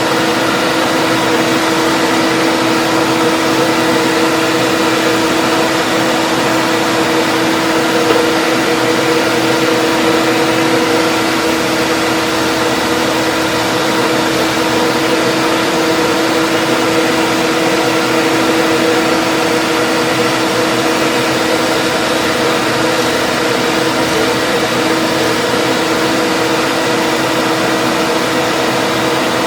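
Electric motor of a shop power tool, used to make wooden plugs, running steadily with a constant hum.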